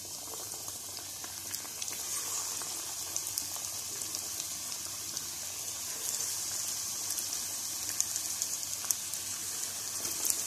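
Hot oil sizzling with scattered crackles and pops as besan-battered chicken pakoras are dropped in to deep-fry, the sizzle growing a little louder as more pieces go in.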